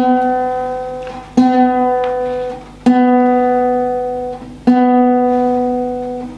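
Guitar's open B string plucked about every one and a half seconds, each note ringing out and fading, while it is tuned down to pitch from slightly sharp.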